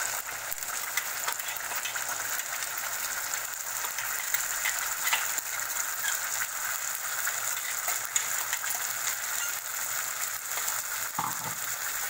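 Chopped onions, curry leaves and freshly added red masala paste sizzling steadily in hot ghee in a kadai, with a few faint clicks.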